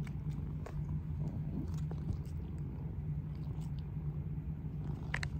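A cat purring steadily and close up, a continuous low rumble, with a few faint clicks.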